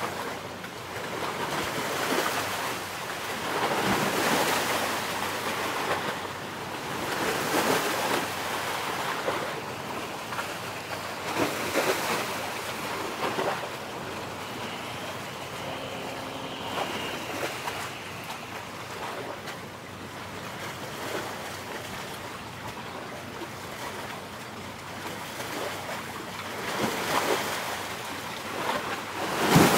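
Sea waves washing onto the shore in repeated swells every few seconds, with wind buffeting the microphone.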